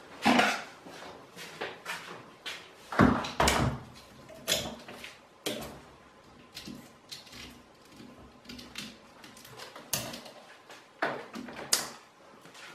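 Irregular knocks and clicks of hard objects being picked up and set down, a dozen or so spaced unevenly, a few of them sharper and louder.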